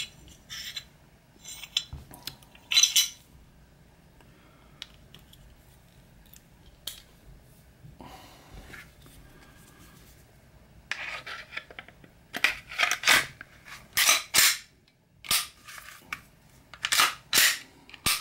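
Metal clicks and clacks of a Glock 21 pistol being put back together, with light handling noise in between. From about eleven seconds in comes a quick run of loud, sharp clicks as the assembled pistol's slide is worked and the trigger dry-fired to try the new titanium safety plunger.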